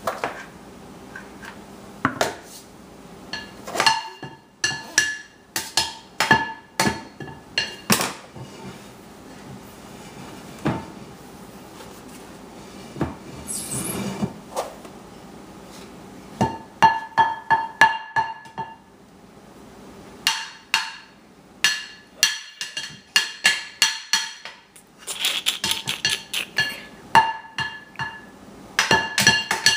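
Metal objects being banged and clinked together in irregular runs of quick strikes, each hit ringing briefly, with a few pauses, the longest about two-thirds of the way through.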